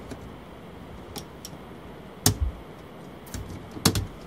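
Miniature circuit breakers and the residual-current (ground fault) switch in a consumer unit being flipped off by hand: a series of sharp snapping clicks, a few faint ones first, then a loud one a little over two seconds in and a quick pair near the end.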